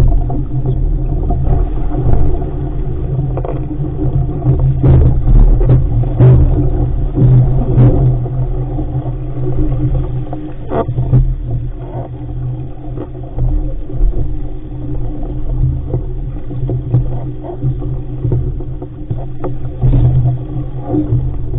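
Wind and water noise aboard an RS500 dinghy sailing fast and heeled: a loud, steady low rumble of wind buffeting the mounted camera's microphone, broken by irregular splashes of spray and water hitting the hull.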